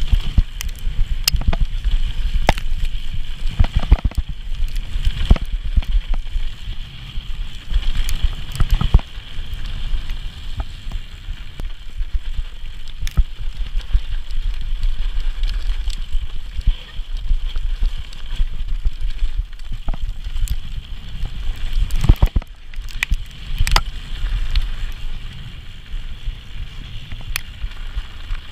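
Mountain bike ridden fast over a dirt trail: wind rumble on the microphone and tyre noise, with frequent sharp clatter and knocks from the bike over bumps, heaviest about 22 to 24 seconds in.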